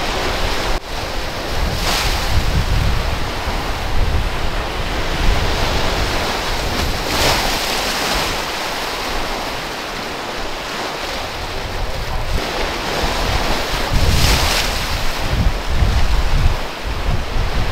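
Sea waves surging and breaking in a snowstorm, with strong storm wind buffeting the microphone. The surf swells louder three times, a few seconds apart.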